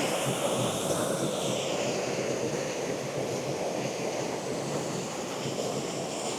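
Steady rushing of a small waterfall, an even roar of falling water.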